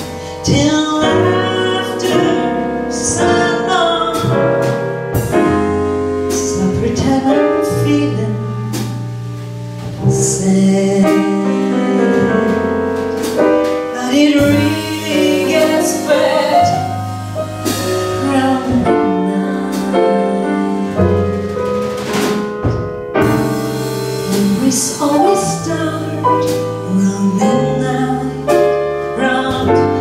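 Small jazz combo playing live: a woman sings the melody over piano, double bass and drums.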